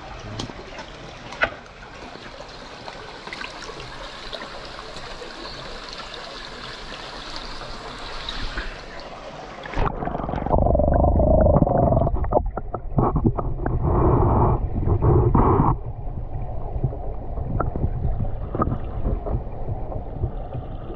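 Shallow creek water trickling and lapping over rocks. About ten seconds in the sound suddenly turns muffled and low as the microphone goes under water, becoming a loud rumbling gurgle of water against the submerged camera.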